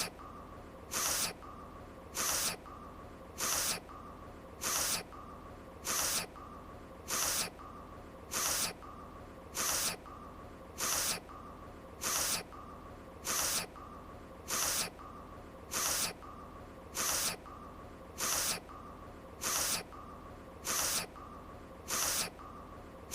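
An anime character's sniffle, a short hissing intake of breath through the nose, repeated as a loop about every 1.2 seconds, some nineteen times, over a faint steady background tone.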